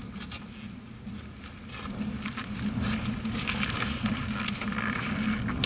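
Yamaha XTZ660 single-cylinder engine idling steadily. A clattery, ticking mechanical noise sits over it and grows louder about two seconds in.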